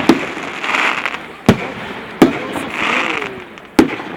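Fireworks display: four sharp bangs of bursting shells, irregularly spaced, with a hiss between them.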